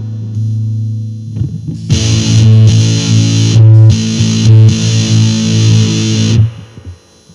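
Electric guitar played through a Musontek FurFur fuzz pedal, heavily distorted. A held note rings at first, then loud fuzzed chords are played from about two seconds in and cut off sharply near the end.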